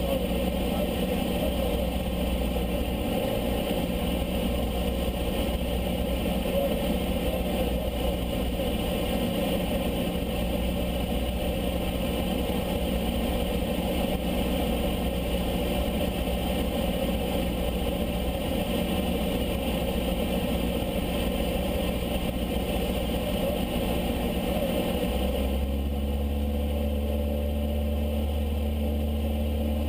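Single-engine piston aircraft's engine and propeller droning steadily inside the cabin of a high-wing light plane in flight. About 25 seconds in, the engine note changes to a different pitch, a change in power setting.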